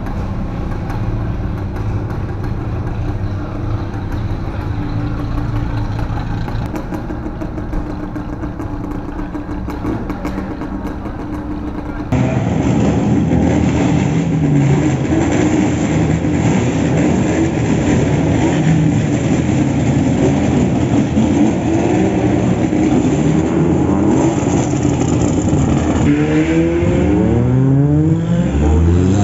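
Opel Kadett GSI's naturally aspirated 2.0 engine, with a 4-into-1 header and no air filter, running at low revs as the car rolls out. Then, after a sudden cut to a louder recording, several race-car engines revving and pulling away, with voices, and quick rising revs near the end.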